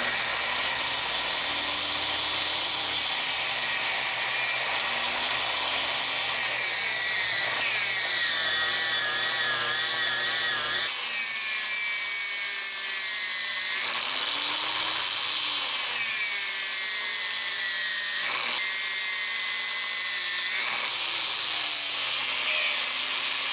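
Bosch GWS 6-115 angle grinder running with a sanding disc, a wooden knife handle pressed against it. Its motor whine sags and recovers several times over a steady sanding hiss.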